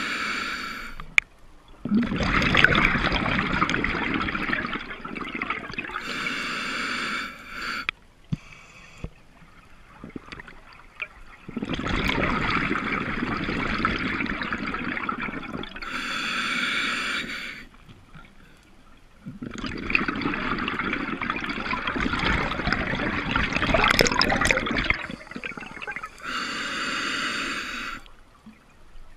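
Scuba diver breathing through a regulator. Three times over, a few seconds of bubbling exhale is followed by a shorter hissing inhale through the regulator, with a brief lull between breaths.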